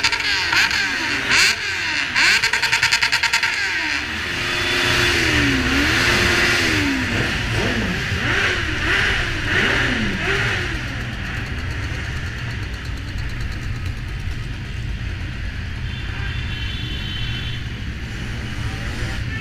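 Motorcycle engines revving, the pitch rising and falling again and again over the first ten seconds or so, then settling to a steadier running sound.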